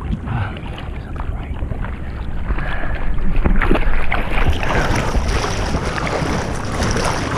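Ocean surf rushing and splashing around a head-mounted camera as a bodyboarder rides a wave, with wind buffeting the microphone as a low rumble. The splashing grows louder about three seconds in.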